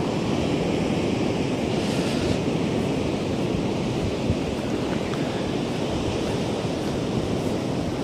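Steady sea surf washing on a sandy beach, with wind buffeting the microphone.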